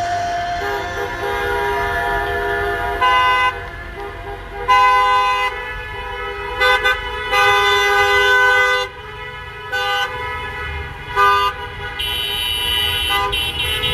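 Car horns honking from a line of passing cars, several at once, in repeated short and long blasts over the low rumble of traffic.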